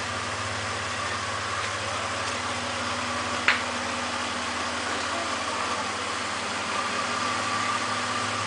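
1999 Toyota Tacoma engine idling steadily with Sea Foam treatment in its oil and fuel, run to address an engine knock. A single sharp click sounds about three and a half seconds in.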